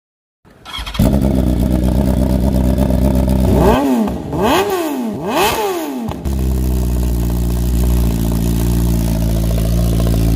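Motorcycle engine started up about a second in and idling in neutral. It is revved three times in quick succession around the middle, each blip rising and falling in pitch, then settles back to a steady idle.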